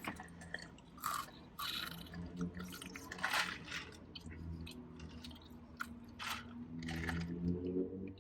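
Close-up chewing and crunching of fast food, irregular crackles of a mouth working through fries and sandwich, over a low steady hum.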